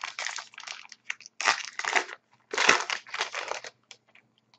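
A hockey trading card pack wrapper being torn open and crinkled, in a run of rustling crackles. The two loudest come about one and a half and two and a half seconds in.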